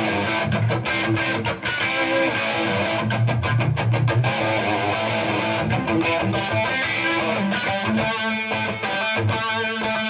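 Overdriven electric guitar: a Gibson 1959 Les Paul reissue played through a cranked 1972 Marshall Model 1986 50-watt Bass head with its channels jumped, into a Marshall 4x12 cabinet with G12 Vintage speakers, with no pedals. Ringing chords and riffs, turning to rapid repeated picked strokes near the end.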